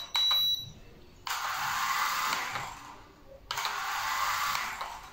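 Drone remote control beeping, one high-pitched beep lasting about half a second right at the start, the signal that its 360-flip button has been pressed. After it come two bursts of steady hiss, each about two seconds long.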